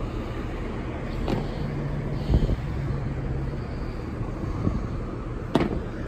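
Steady outdoor rumble of traffic and running machinery, with a low hum for a couple of seconds in the middle, a dull thump a little past two seconds in, and sharp clicks about a second in and near the end.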